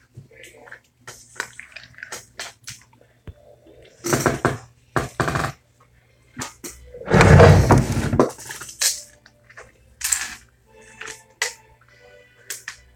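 Scattered knocks, clicks and rattles of small objects being handled at a wooden desk, with one loud, heavy scraping thump about seven seconds in as a wooden desk drawer is set down and slid on the desktop. A low steady hum runs underneath.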